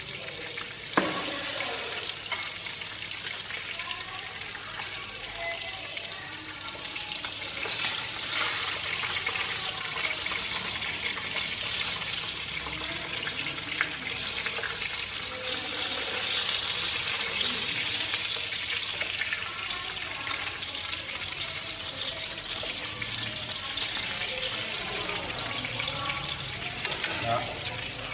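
Climbing perch frying in a fish-sauce glaze in a nonstick pan: a steady sizzle, with a few sharp clicks now and then.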